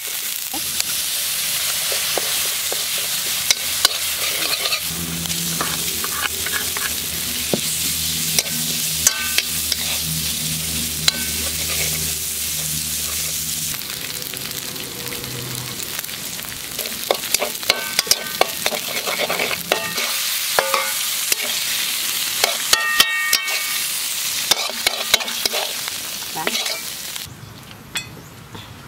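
Minced spice paste sizzling as it fries in a large aluminium wok, with a metal spatula scraping and clicking against the pan as it is stirred. A low hum runs underneath for several seconds in the first half, and the sizzling stops suddenly near the end.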